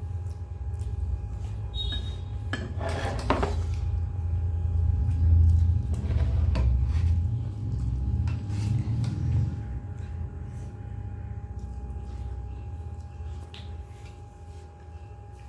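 Tableware clinking: a china bowl set down on a wooden table, with a cluster of clicks about three seconds in and another about six seconds in, then lighter clicks of fingers mixing rice on a steel plate. A low steady rumble and a faint hum run underneath.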